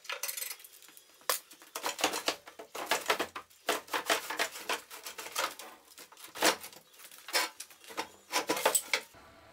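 Irregular knocks, scrapes and rustles of a new table saw and its packaging being handled and pulled free by hand, in a string of short bursts that stops near the end.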